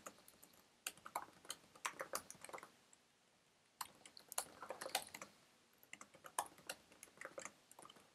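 Computer keyboard typing: faint, quick runs of keystrokes, with a pause of about a second partway through.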